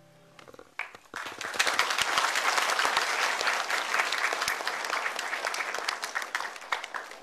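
The last sustained note of the song dies away, then an audience applauds. The clapping starts about a second in, builds quickly, holds, and thins out near the end.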